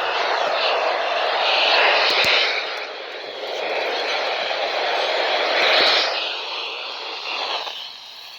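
Radio static from a receiver between weather-alert broadcasts: a steady hiss that swells about two and six seconds in, then dies down near the end.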